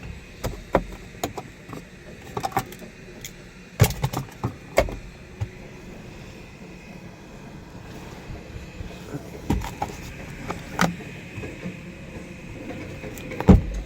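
Scattered clicks, knocks and thumps of hands working parts inside a car's cabin, over a faint steady hum. The heaviest thump comes near the end.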